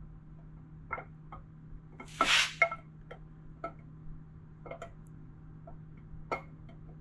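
Metal hand tools and engine parts clinking and tapping in scattered single knocks, with one louder brief scraping rush about two seconds in.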